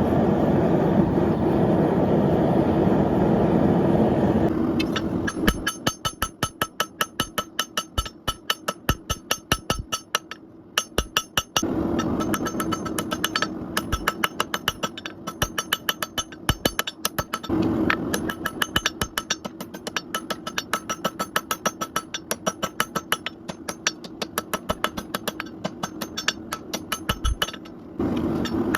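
Hand hammer striking steel on an anvil, about three to four blows a second, each blow ringing with a bright metallic tone, with a few short pauses between runs. For the first few seconds a steady rushing roar comes before the hammering, and a low hum runs under it all.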